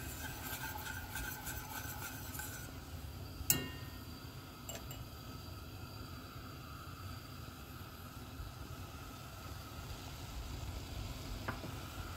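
Wire whisk stirring a thin sugar-and-cornstarch mixture in a stainless steel saucepan, the wires scraping and clicking against the pan for the first few seconds. About three and a half seconds in comes one sharp metal clink, then a steady faint hiss as the pan heats toward a boil.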